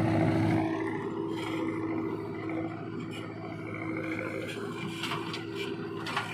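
Heavy diesel engine running steadily at a constant pitch, a little louder for the first second, with a few faint knocks near the end.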